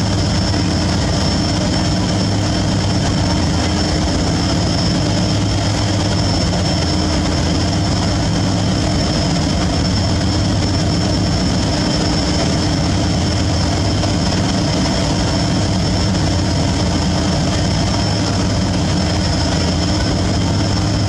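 Boat diesel engines running steadily at speed on a river: a constant low drone with a thin high whine above it, over the rush of water.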